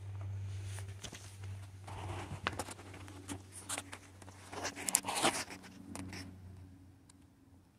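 Soft rustling and scuffing handling noise, loudest about five seconds in, over a steady low hum.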